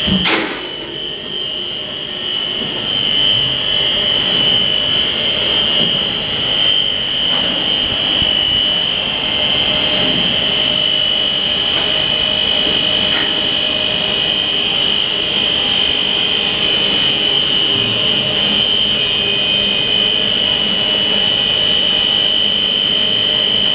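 SG300 industrial meat grinder running under load as it grinds frozen meat blocks: a loud, steady mechanical din with a high-pitched whine held throughout. A brief sharp knock comes right at the start.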